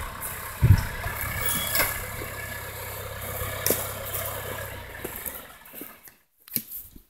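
John Deere 2140 diesel tractor engine running steadily as its forestry winch drags a felled tree trunk, with a knock about a second in. The engine sound fades out near the end, leaving only a few clicks.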